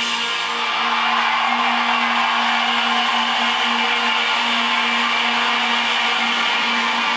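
Live rock band holding a sustained, distorted electric guitar chord: one steady low note under a dense noisy wash, with no strumming or breaks.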